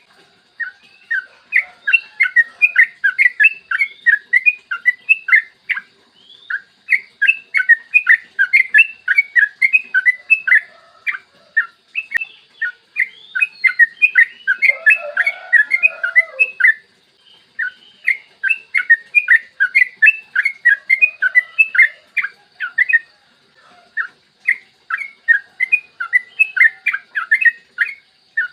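Yellow-vented bulbul (trucukan) singing long, rapid runs of bubbly chattering notes, in phrases of a few seconds broken by short pauses.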